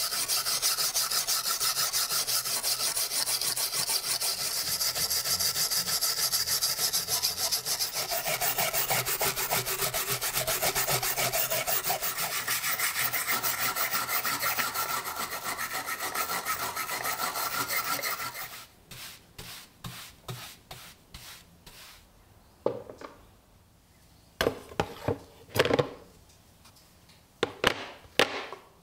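Small brass wire brush scrubbing rust off a steel knife blade on a wooden board, in rapid back-and-forth strokes. About two-thirds of the way through the brushing stops, giving way to a few separate short scrapes and then several knocks as the metal pieces are set down in a plastic tub.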